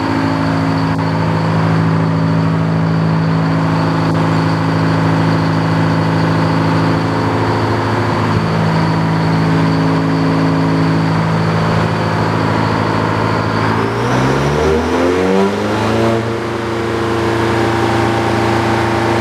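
Detroit diesel engine running the sawmill with its new circular blade spinning, steady at first, then speeding up over about two seconds in the last third and holding at the higher speed. This is the blade's first start-up, not yet up to RPM.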